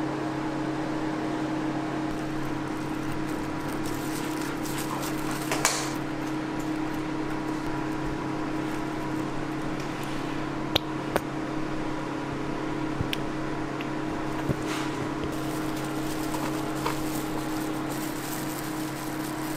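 Steady hum of kitchen machinery, like a running fan, holding two low tones. A few sharp clicks and taps come from utensils being handled at the grill, the loudest pair about eleven seconds in.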